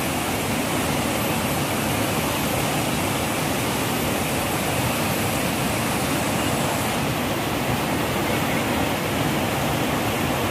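A rain-swollen, muddy river rushing fast over boulders in rapids: a steady, even sound of fast-flowing water.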